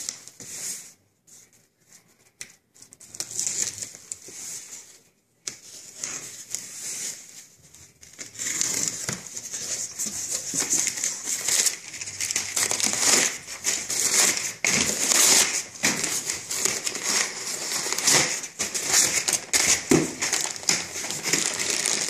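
A cardboard box being handled and opened, with scattered quieter rustles, then from about eight seconds in a continuous loud crinkling and rustling of crumpled packing paper and a plastic bag as hands dig through the packing.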